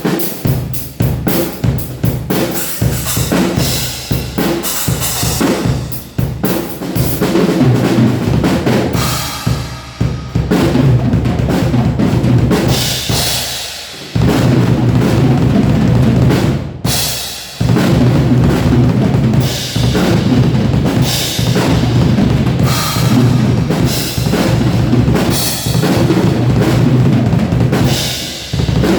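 Acoustic drum kit played continuously, with bass drum, snare, rolls and cymbals, recorded on a single mobile phone. The playing stops abruptly twice for a moment about halfway through.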